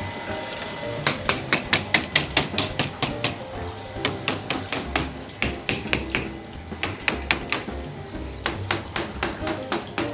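A small hammer tapping PVC pipe elbows lightly, in quick runs of sharp knocks about five a second with short pauses between. The pipe is tapped gently at the bends for fear it is already cracked. Background music plays underneath.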